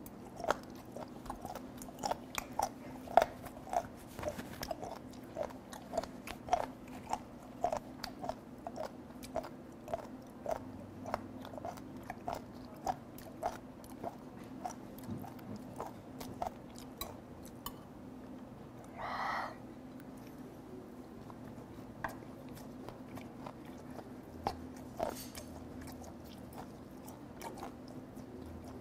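A person chewing a mouthful of fermented skate (hongeo) close to the microphone. The chews come steadily at about two a second, then thin out to occasional bites, with one brief rushing breath-like sound about two-thirds through. A steady low room hum runs underneath.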